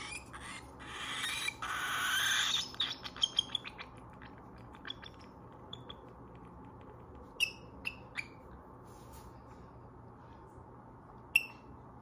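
Baby cockatiel begging for food: a loud harsh call builds over about two seconds and breaks into a rapid run of short calls. A few separate chirps follow later, the loudest one near the end.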